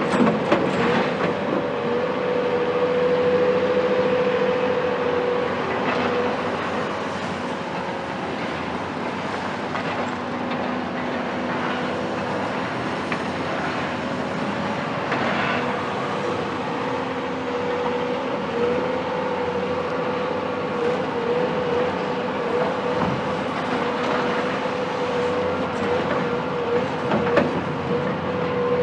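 Caterpillar 374 excavator's Cat C15 diesel engine running steadily with a high hum, with scattered knocks and crashes of demolition rubble; the sharpest knock comes near the end.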